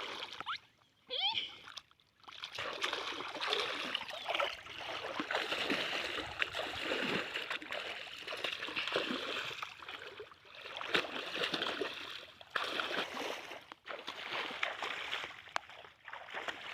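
Water splashing and trickling unevenly, in irregular bursts.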